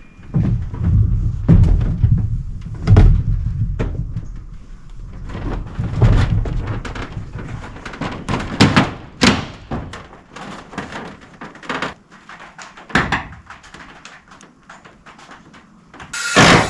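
Irregular knocks and thuds of work on a roof, some sharp and loud, over a low rumble that fades out about halfway through. Just before the end a power tool starts up with a loud steady whirr.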